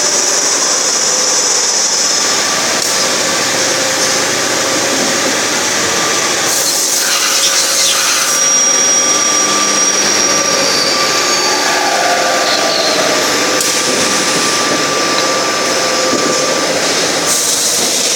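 Steady machine-shop noise from CNC machines and a handling robot running: a continuous hiss with several held whining tones that come and go, and a brighter hiss setting in about six seconds in and again near the end.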